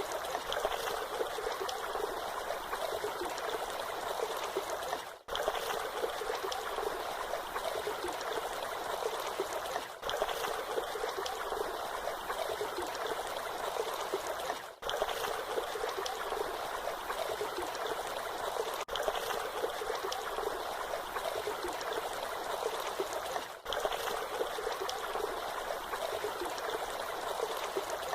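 Waterfall running steadily, a constant splashing hiss of falling water with little low rumble. The level drops out for an instant about every five seconds.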